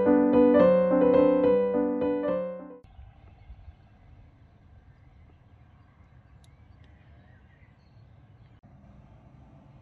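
Solo piano music that cuts off abruptly about three seconds in, followed by faint outdoor background noise.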